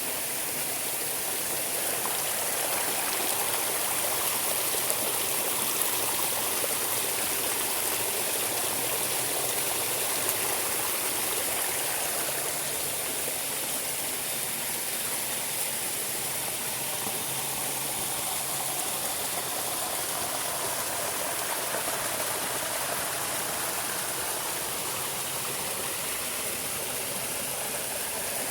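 Water of a stream flowing steadily, an even rushing hiss that does not change.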